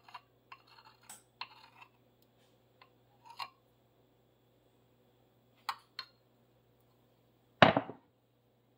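Small clicks and brief scrapes of a utensil against a glass mixing bowl as pancake batter is scraped out, with two sharper clicks later. Near the end comes one louder clatter of kitchenware being set down on the frying pan and stovetop.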